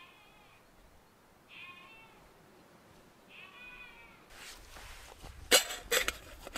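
A sheep bleating three times, each call short and wavering. From about five seconds in, sharp metal clinks and scrapes come as a small metal cook pot and its lid are handled.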